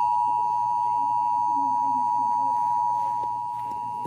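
Emergency Alert System attention signal: the steady two-tone alert sound, two pitches held together without a break, announcing an incoming alert. It drops slightly in loudness about three and a half seconds in, with a faint voice underneath.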